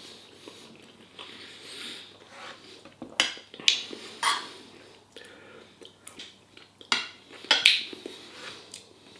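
Cutlery clinking against a dish during a meal: sharp clicks a few seconds in and again around seven seconds in, between quieter eating sounds.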